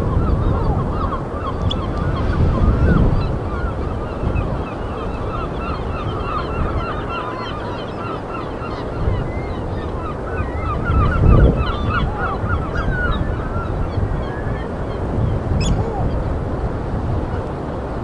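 A flock of birds calling continuously, many short overlapping calls at once, over a low rumble with a louder bump about eleven seconds in.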